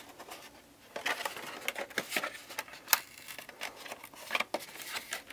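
Cardboard toy box and plastic packaging being handled: irregular rustling and tapping with scattered clicks, one sharper click about three seconds in.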